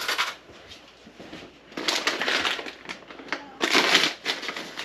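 Crinkling of a plastic pouch being handled and opened, in two rough bursts about two and four seconds in.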